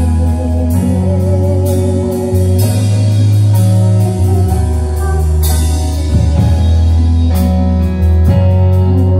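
Band music with bass notes changing every second or two, guitar, and a drum kit keeping a steady beat.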